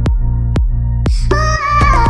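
Background electronic music with a steady beat, about two beats a second, over a deep bass; a melody comes in a little past halfway.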